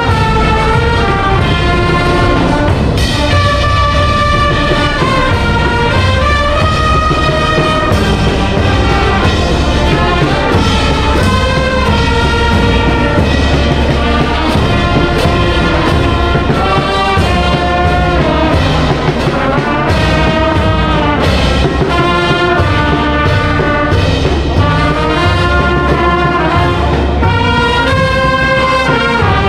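Brass band playing a continuous melody over a steady low bass.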